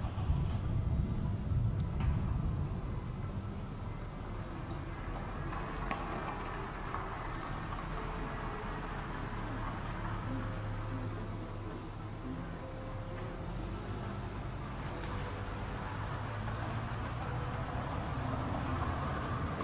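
A steady high-pitched whine, in two thin tones, over a low rumbling noise.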